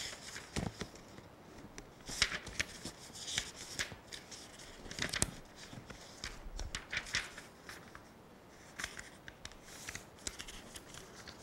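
Sheets of paper rustling and sliding in quick, scattered strokes as a stack of lecture notes is leafed through by hand.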